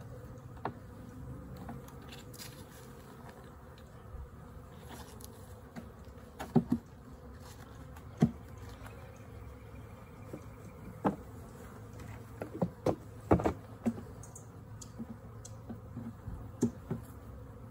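Honeybees buzzing steadily around an open hive, with a scattering of sharp wooden knocks and clicks as comb frames are set into the wooden hive box and pushed together.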